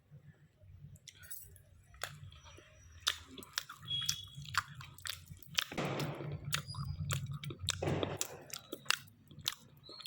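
Close-up chewing and biting of a chicken shawarma roll: irregular wet clicks and soft crunches from the mouth, with a couple of breaths through the nose about six and eight seconds in.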